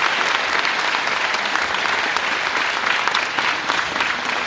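Audience applauding, a dense steady clapping that follows the close of a speech.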